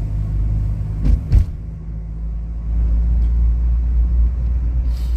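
Car travelling along a road: a steady low engine and road rumble, with two sharp knocks about a second in, after which the rumble settles a little deeper.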